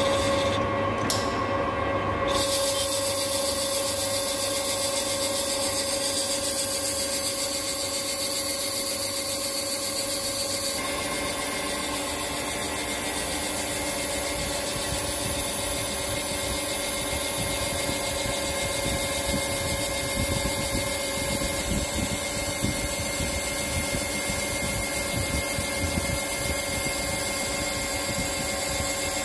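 TM-26120G centre lathe cutting a 4-inch induction-hardened chrome bar: steady machining with a constant tone and a high hiss of the cut. It first faces the bar's end, then from about two seconds in turns along its outside, the sound shifting again a little before halfway.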